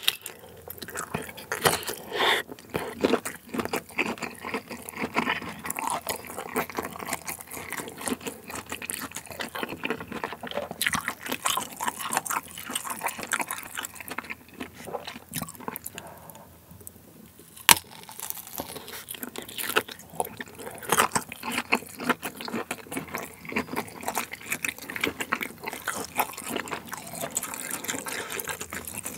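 Close-miked biting and chewing of a kielbasa sausage: a steady run of small, irregular mouth sounds, with one sharp click a little past halfway.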